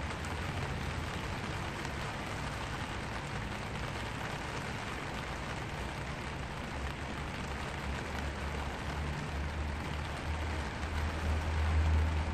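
Steady rain falling on a black vinyl umbrella, a dense, even patter of drops on the canopy. A low rumble runs underneath and grows louder near the end.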